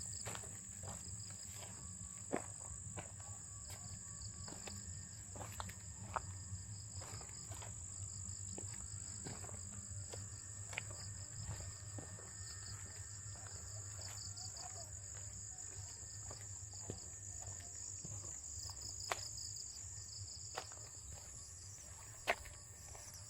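Insects trilling steadily: a constant high-pitched buzz with a second, pulsing trill just below it, over a low steady rumble and a few scattered sharp clicks.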